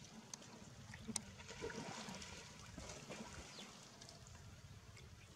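Faint lapping and small splashes of water as a long-tailed macaque swims with her infant on her back, with a sharper splash-like tick about a second in.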